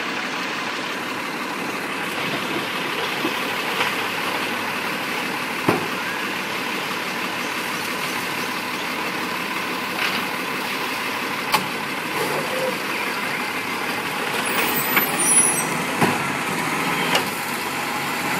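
Garbage truck engine idling steadily, with a few sharp knocks and clunks, busier near the end, as plastic wheelie bins are handled and the side-loading arm lifts a bin.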